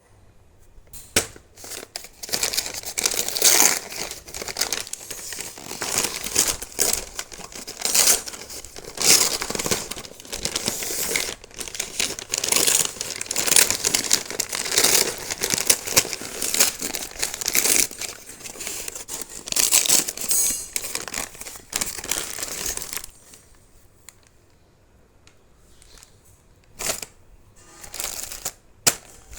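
Packaging being handled and torn open by hand, crinkling and tearing in irregular bursts; about 23 seconds in it goes quieter, leaving a few scattered clicks and rustles.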